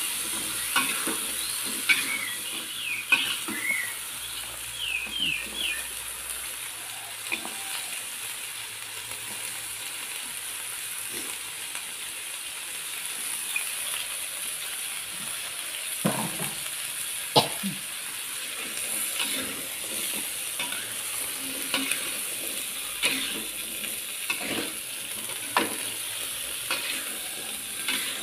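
Long beans sizzling steadily in a hot wok as they are stir-fried, with a metal spatula scraping and knocking against the pan now and then.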